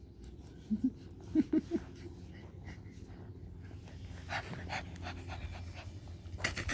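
Puppy panting hard during rough play, with a few short high squeaks about a second in.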